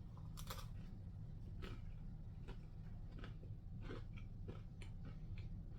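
A person chewing and biting into a slice of beef birria pizza: soft, irregular mouth sounds every half second to a second over a low steady hum.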